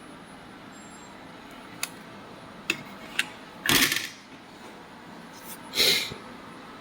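Handling of a stripped-down bass amplifier chassis: three sharp clicks or knocks, then two short, louder scraping rubs about two seconds apart.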